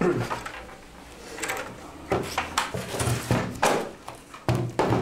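A run of irregular wooden knocks and clunks, about ten in a few seconds, as objects and furniture are handled.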